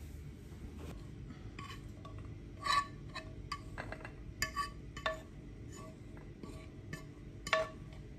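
A utensil clinking and scraping against a nonstick frying pan and a china plate as beans are served out of the pan, a string of sharp irregular clinks with brief ringing, the loudest about a third of the way in and again near the end.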